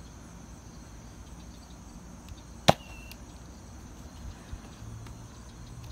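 A Nerf Mega Bigshock spring-powered dart blaster fires once, a sharp snap about two and a half seconds in, followed by a brief high whistle as the Mega dart flies.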